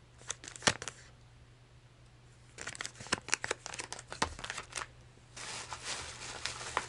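Plastic lure packaging crinkling and crackling as it is handled and laid down on a counter, followed near the end by a plastic shopping bag rustling as a hand rummages inside it.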